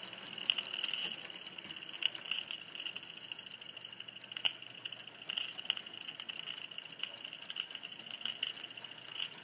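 Model train running along its track: a steady high whine with scattered clicks.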